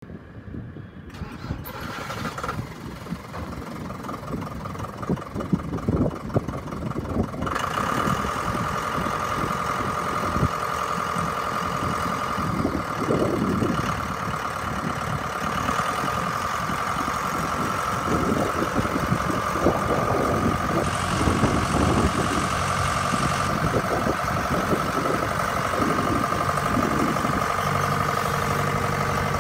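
John Deere 6420L tractor's four-cylinder diesel engine running, with a steady whine riding over it. Near the end a lower, even engine note comes in as the loader bucket is up and the tractor moves off.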